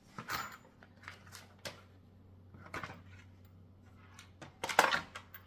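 Parts of a bike repair stand being handled during assembly: scattered light clicks and knocks, with a louder clatter near the end.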